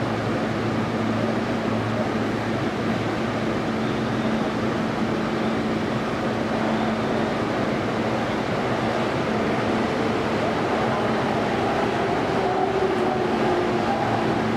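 Steady cabin noise inside a Toei 10-300 series subway car, with a constant low hum under an even rush of noise.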